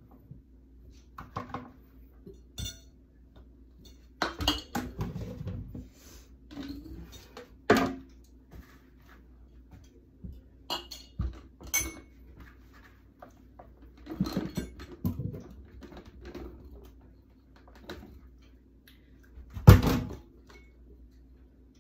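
Irregular clatter and knocks of kitchenware as diced raw potatoes are handled and dropped through a plastic canning funnel into glass jars, with a sharp knock near the end.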